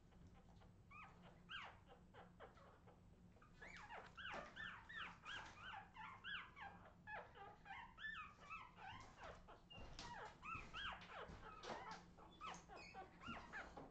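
Newborn Australian terrier puppies squeaking and whimpering: many short, high cries that rise and fall, growing thicker from about four seconds in.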